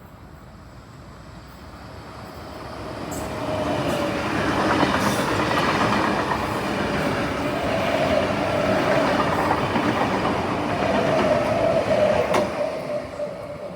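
Electric passenger train running past on the line: the rumble builds over the first few seconds, stays loud with a steady whining tone through the middle, then fades near the end. A single sharp click comes just before it fades.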